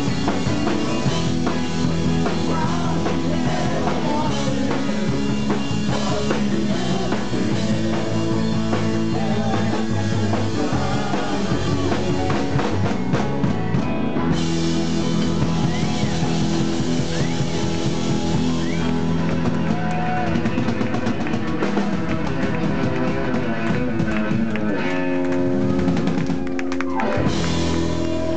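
Rock band playing live and loud: electric guitars, bass guitar and a drum kit.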